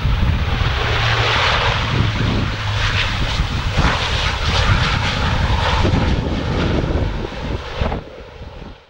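Bombardier Dash 8 Q400 turboprop airliner's engines and propellers running loud as it rolls along the runway: a broad rushing noise over a steady low hum, dropping away sharply near the end.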